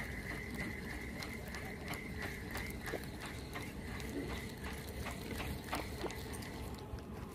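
Fishing reel being cranked to retrieve line: a rapid, even clicking at about four clicks a second, with a steady high whir through the first two seconds or so.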